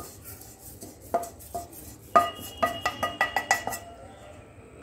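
Roasted oats being scraped out of a non-stick pan into a glass bowl with a spatula: a few light scrapes and clicks, then a quick run of about eight ringing taps as the oats are knocked off into the bowl, about halfway through.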